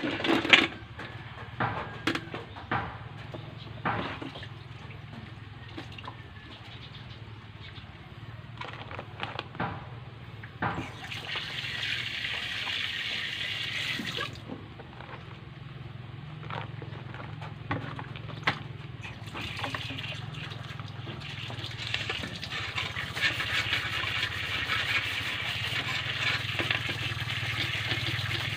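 Water running into a sink, starting about eleven seconds in, stopping after a few seconds, then running again steadily from about nineteen seconds on. Before the water starts there are several sharp knocks and clatters on the cutting board, and a low steady hum runs underneath.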